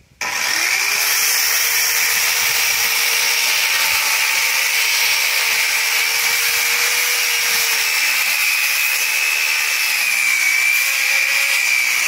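Corded circular saw spinning up and cutting steadily through a pressure-treated lumber beam in one long continuous cut.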